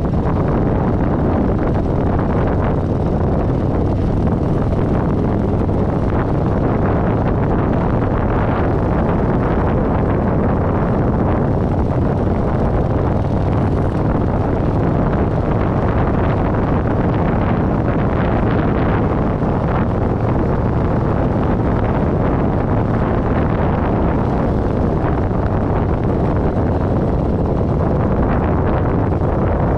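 Kawasaki Vulcan 900 V-twin motorcycle engine running steadily at an easy cruising pace, with wind rushing over the microphone.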